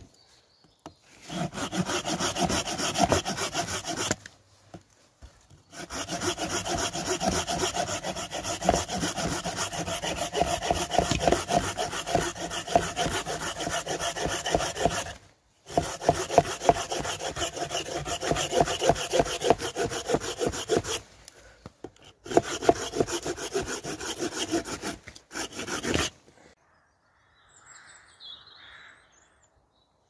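Small Bahco handsaw cutting through a branch resting on a log, in fast, steady back-and-forth strokes. The sawing comes in four bouts with short breaks and stops about four seconds before the end.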